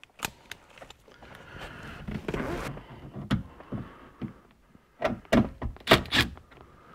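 A car headliner panel being pushed and shifted against the roof: scraping and rustling, with a few clicks, then a quick run of loud knocks and clicks about five seconds in.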